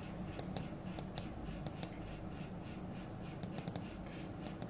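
Faint, irregular small clicks and rubbing of a hand handling a computer mouse on the desk, a few clicks a second.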